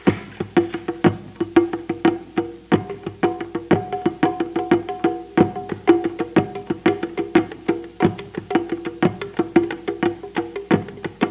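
Hand percussion played in a quick, uneven stream of sharp strikes, several a second, each ringing briefly on one of a few low notes. There is a short hiss right at the start.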